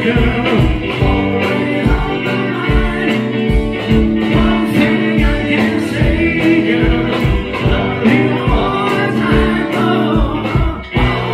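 Live rock band playing a song with electric guitars, bass and drums under sung vocals, to a steady beat.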